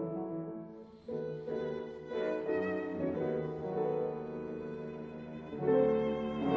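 Background music led by violin, with notes changing in a melodic line; it dips briefly about a second in and swells louder near the end.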